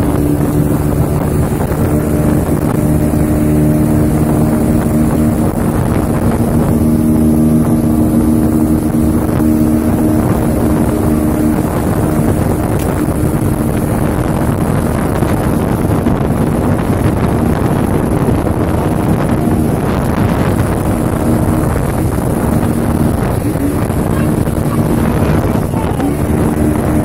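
Small speedboat's engine running at a steady cruising speed, heard from on board with the rush of water and air, its hum holding one pitch apart from a couple of brief shifts near the end.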